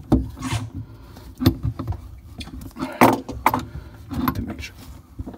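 Hand tools clicking and clanking against a chrome shut-off valve and its fitting as the valve is tightened onto the pipe with pliers and a wrench: a few sharp metallic clicks about a second or so apart, with glove and tool rustling between.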